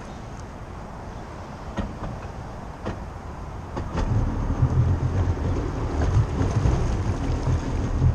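Engine of a 2000 Sea-Doo GS personal watercraft comes in about halfway through and runs steadily at idle, after a few faint clicks.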